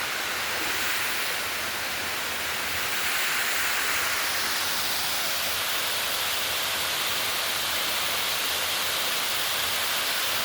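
Water running down a rock face in a small waterfall, a steady rushing that rises slightly a few seconds in.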